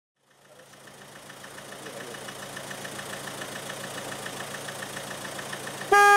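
An approaching electric train, headed by a Newag Griffin EU160 locomotive: a steady running noise fades in and grows louder, with a fast even ticking in it. Just before the end the locomotive's horn sounds a loud blast, the Rp1 'attention' warning signal.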